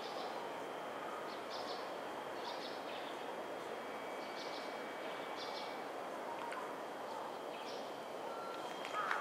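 Steady hum of a stopped JR 311 series electric train's running equipment at the platform, with short high bird chirps coming every second or so over it.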